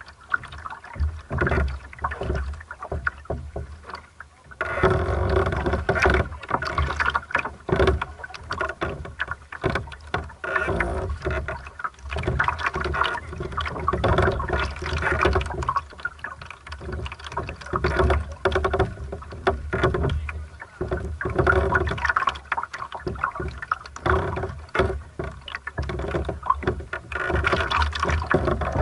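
Water slapping and gurgling against the hull of a small sailing dinghy moving slowly, in irregular choppy splashes and knocks. Quieter for the first four seconds or so, then louder and choppier.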